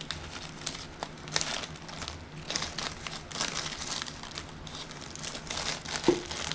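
Plastic parts bag crinkling and rustling as it is handled, with a small metal part clinking once about six seconds in.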